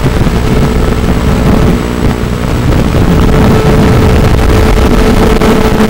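Micro quadcopter's RCX 1804 brushless motors and propellers buzzing in flight: a steady hum that grows stronger about three seconds in, over a dense rushing noise.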